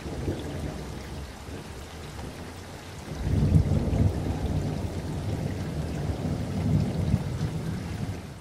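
Heavy rain and gusting wind ahead of a hurricane, heard through window glass: a dense hiss of rain over a low rumble that grows louder about three seconds in.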